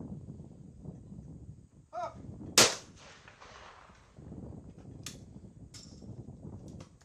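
A trap shooter's short call for the target, followed about half a second later by a single shotgun shot whose report rings and echoes for about a second. A few light clicks follow later.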